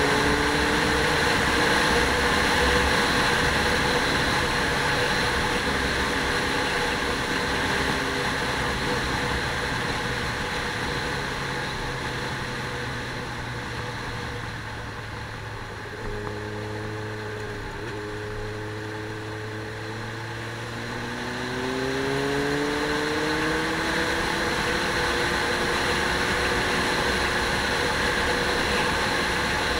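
A motor vehicle engine running steadily, easing off and going quieter through the middle, then rising in pitch and level again about 21 seconds in as it accelerates.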